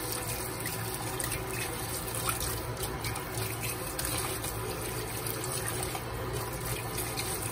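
Kitchen tap running steadily into a steel basin of water in a stainless-steel sink, with light splashing as hands rinse goat intestine in the water.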